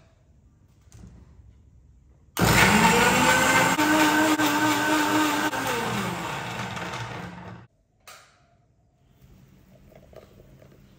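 Electric mixer grinder with a steel jar running for about five seconds, grinding chopped bitter gourd into juice. It starts abruptly about two seconds in, its motor pitch rises as it spins up, holds steady, then sinks toward the end before cutting off.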